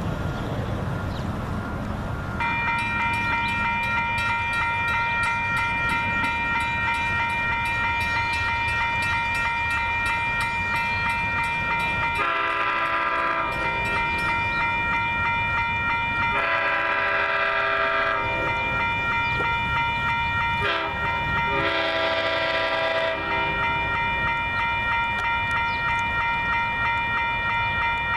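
An LIRR train's multi-chime air horn sounding the grade-crossing signal: two long blasts, a short one and a final long one as the train approaches the crossing. Under it, from about two seconds in, the crossing's warning bell rings steadily.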